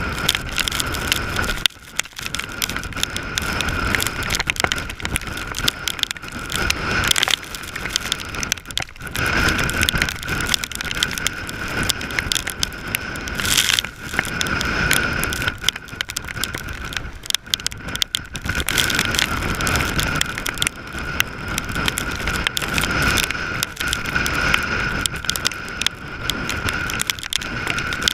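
Strong storm wind buffeting the camera microphone in rough, rising and falling gusts, with a thin steady whistle underneath.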